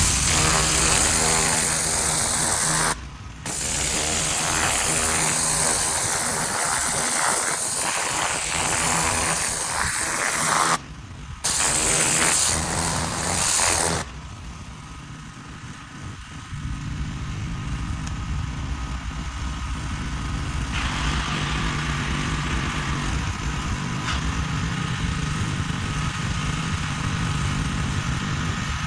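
Gas pressure washer engine running steadily, with the loud hiss of the high-pressure spray over it for the first half, cut off twice briefly. From about halfway on the engine runs without the loud spray hiss.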